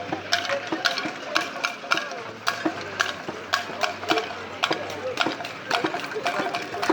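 Campfire crackling, with frequent sharp, irregular pops and snaps.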